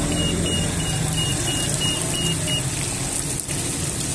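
Chicken pieces sizzling in hot oil in a commercial electric deep fryer, with a fast run of short high beeps from the fryer's control panel, about four a second, that stops a little over halfway through.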